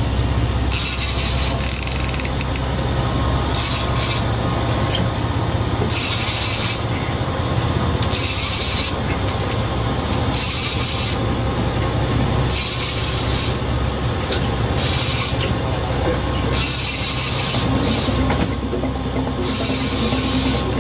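Fishing reel rasping in repeated short spurts, each half a second to a second long, while a fish is fought on a heavy trolling rod. Under it runs the steady low hum of the boat's engine.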